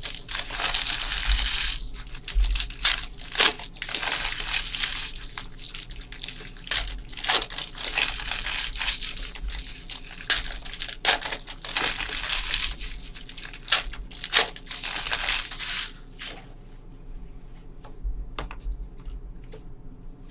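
Sealed trading card packs being torn open and their wrappers crinkled and crumpled by hand, a dense run of crackling and tearing that drops off about four seconds before the end.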